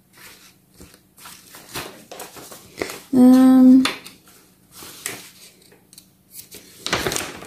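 Paper instruction leaflet rustling and crackling as its folded pages are turned and flapped, with a louder rustle near the end. About three seconds in, a person gives a brief steady hum.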